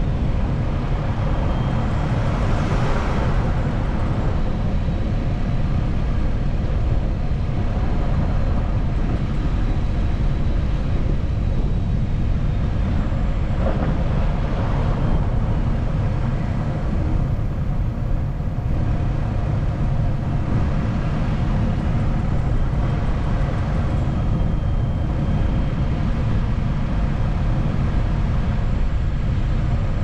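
Steady road noise of a car driving along a snow-covered street, heard from inside the car: tyres on packed snow and slush over a low engine rumble, with brief swells of hiss a few seconds in and about halfway through.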